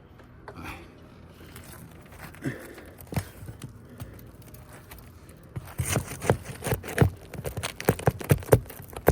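Nails being pried out of brittle, weathered asphalt roof shingles: faint scraping and crackling at first, then a quick run of sharp clicks and knocks in the second half.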